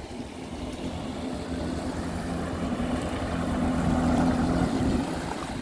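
Yamaha MarineJet personal watercraft's two-stroke engine running, getting louder as the jet ski comes close and easing off about five seconds in, with water spraying off the hull.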